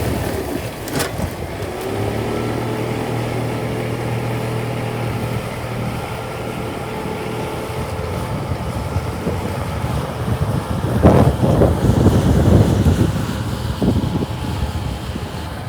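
A vehicle engine running steadily with a low hum, amid blizzard wind. In the latter part, gusts of wind buffet the microphone.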